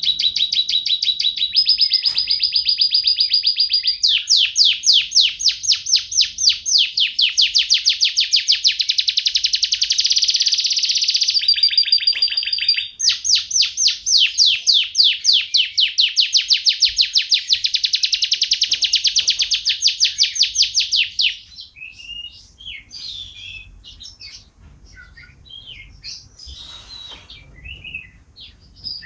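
Domestic canary singing a long, unbroken song of rapid rolling trills, shifting from one trill to the next, for about twenty seconds, then breaking off into short scattered chirps and notes.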